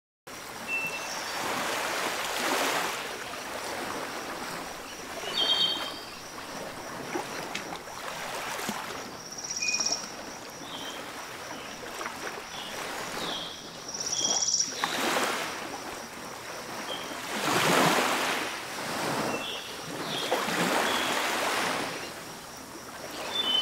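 Water gushing from a large irrigation pump's outlet pipe into a brick channel: a steady rushing that swells and eases every few seconds, with a few short high chirps over it.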